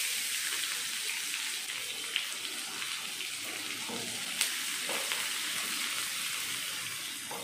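Chopped onions sizzling in hot oil in a pan with tempered mustard seeds, cumin and dals, stirred with a spatula. A steady frying hiss, with a few light clicks of the spatula on the pan.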